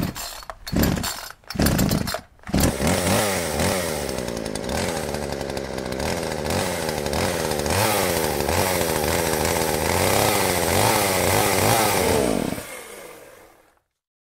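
Chainsaw engine starting: a few short bursts, then it catches about two and a half seconds in and runs, revved up and down repeatedly. It is shut off near the end and winds down to silence.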